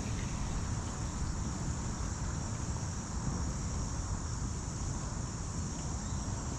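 Steady, high-pitched chorus of insects such as crickets, shrilling without a break, over a low rumbling noise.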